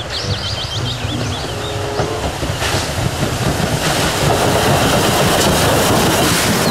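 Steam locomotive and its coaches passing on the rails, a rhythmic low clatter with a rising rush of noise that is loudest in the last few seconds as the engine draws level.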